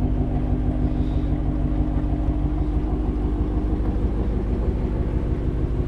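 A 2018 Ford Shelby GT350's 5.2-litre flat-plane-crank V8 idling steadily, through stainless headers and a resonator-delete X-pipe exhaust.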